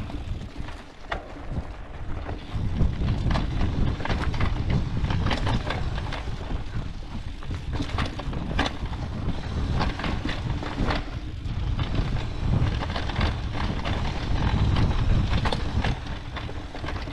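Mountain bike being ridden down a rough dirt trail: the bike clatters and knocks irregularly over bumps, over a steady low rumble of wind on the microphone.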